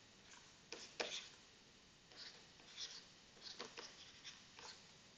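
Faint taps and scratches of a stylus writing on a tablet screen, a handful of soft clicks spread irregularly over a few seconds.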